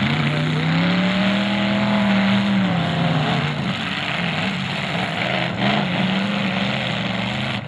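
Several demolition derby cars' engines revving, their pitch rising and falling, with two crashes of car bodies, about three and a half and five and a half seconds in, as the cars ram each other.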